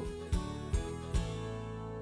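Background music: three accented chords about 0.4 s apart, then a held chord that begins to fade out.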